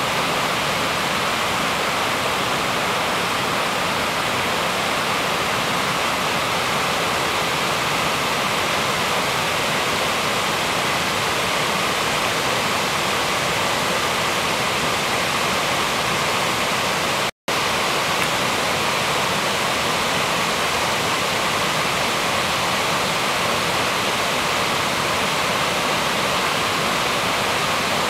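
Lake water pouring over a broad, shallow rocky overflow as whitewater: a steady, even rush. It cuts out for a split second about two-thirds of the way through.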